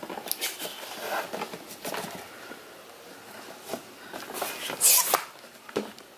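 Cardboard packaging handled: a white cardboard box slid out of its printed cardboard sleeve, with rubbing, scraping and small knocks, the loudest scrape about five seconds in.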